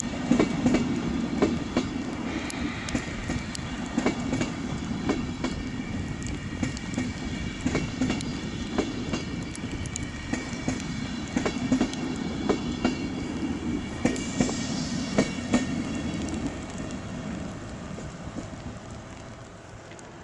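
Train of SBB intercity coaches rolling past: a steady rumble with irregular clicking of wheels over rail joints and points, and brief higher wheel squeals twice. The sound fades away over the last few seconds.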